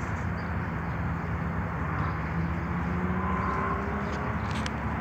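Steady outdoor rumble of a construction site, with a faint engine drone that swells and rises slightly in pitch through the middle.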